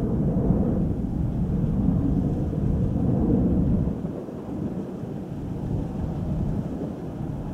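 Jet airliner's engines rumbling as it passes, a deep, noisy roar that fades noticeably about four seconds in.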